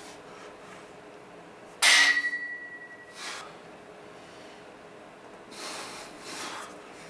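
Metal gym weights clank once, sharply, about two seconds in, ringing briefly afterwards. A few heavy, forceful breaths follow.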